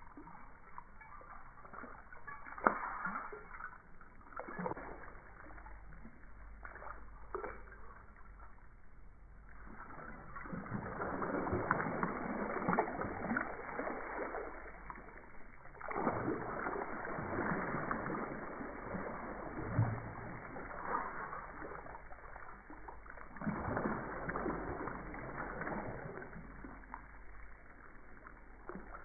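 Water splashing and sloshing in irregular bursts, with a few sharp knocks.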